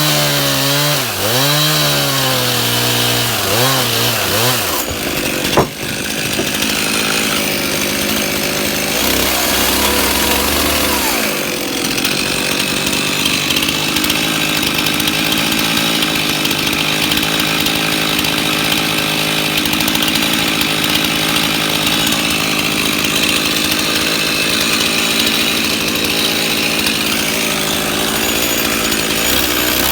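Chainsaw running, its engine pitch rising and falling for the first few seconds, then a sharp knock, then held steady at high revs, cutting log wood for the rest of the time.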